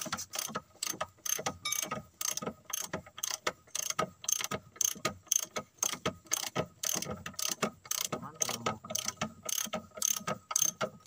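Socket ratchet wrench clicking fast, about four clicks a second in uneven strokes, as a bolt on an excavator's track roller is turned.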